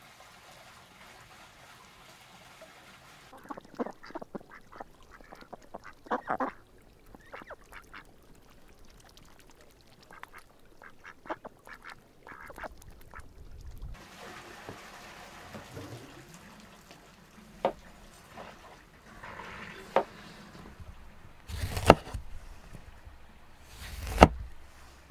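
A flock of white domestic ducks quacking, in several bursts of short calls. Near the end, a large kitchen knife chops through a lemon onto a wooden cutting board: two sharp knocks about two seconds apart.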